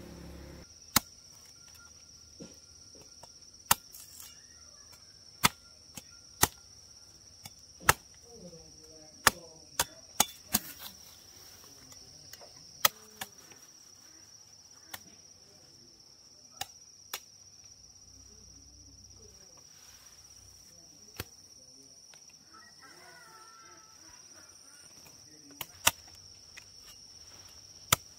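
Sharp chopping strikes at irregular intervals, about twenty of them, over a steady high-pitched insect drone.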